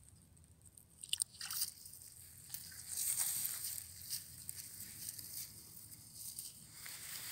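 Common raven pecking at thin ice on a puddle, its beak cracking and crunching the ice in a few sharp clicks about a second in. Softer rustling and crunching follow.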